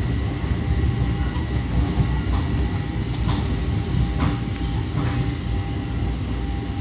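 Long Island Rail Road commuter train rolling along the tracks, heard from inside the passenger car: a steady low rumble, with a few short, faint higher sounds around the middle.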